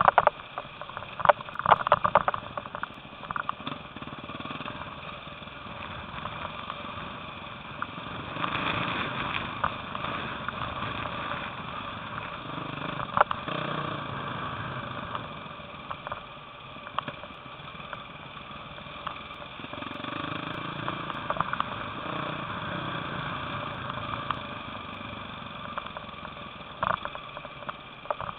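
Enduro dirt bike engine running over a rough dirt track, rising and falling with the throttle, heard from an onboard camera. There are sharp knocks from bumps over the first few seconds.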